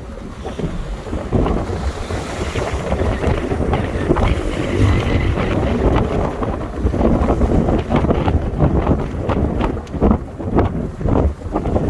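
Gusty storm wind of a tropical cyclone buffeting the microphone in uneven bursts, over the wash of surf breaking on the beach.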